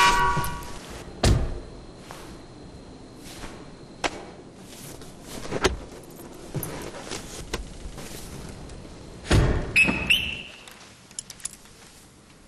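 A series of sharp knocks and thuds, the loudest a cluster about nine to ten seconds in, with softer rattling and rustling between them, as someone handles things inside a car.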